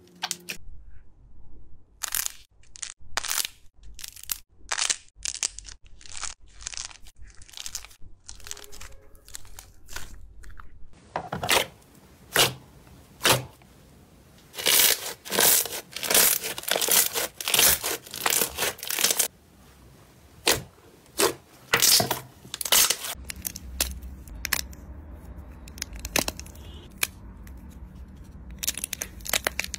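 Slime being pressed and poked, making irregular sharp crackles and pops, in a run of short clips that change every several seconds.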